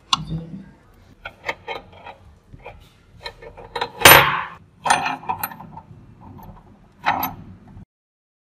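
Small metallic clicks and taps as a screwdriver turns screws in the restored scale's dial cover and the scale's metal parts are handled. A louder clatter comes about four seconds in. The sounds stop shortly before the end.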